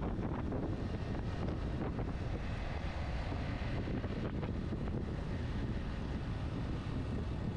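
Steady wind rushing over the microphone of a motorcycle riding at a steady speed, with engine and road noise underneath.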